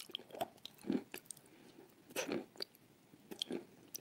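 Close-miked wet chewing and lip-smacking of a soft, creamy paste eaten by hand. The mouth sounds come in short separate bursts, a second or so apart.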